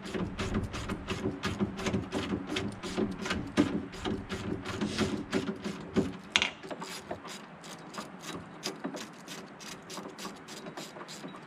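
Hand ratchet wrench clicking steadily, about three clicks a second, as a tailgate hinge bolt is turned. Louder in the first half, softer after about six seconds.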